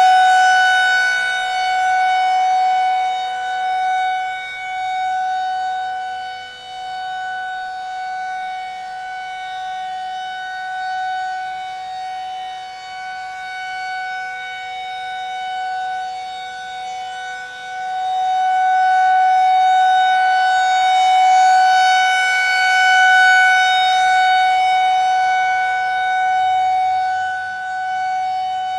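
Federal Signal 2001-SRNB rotating electromechanical warning siren sounding its steady full-alert tone. The one held pitch swells and fades as the rotating horn sweeps toward and away, loudest at the start and again about two-thirds of the way in.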